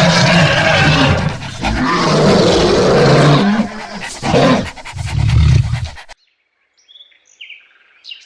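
Loud, harsh animal calls in several long stretches. They cut off about six seconds in, leaving near silence with a few faint short chirps.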